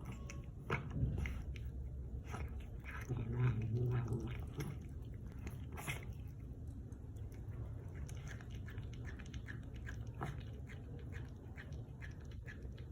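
Cat growling low over its food while chewing, with crunching clicks of the bites throughout; the growl is loudest about three to four seconds in. It is food-guarding, a warning to another cat away from its bowl.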